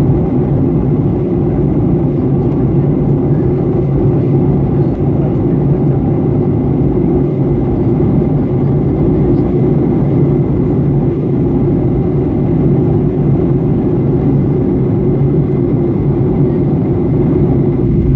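Steady cabin drone inside a jet airliner during descent: engine and airflow noise, heavy and low, with a faint steady high tone.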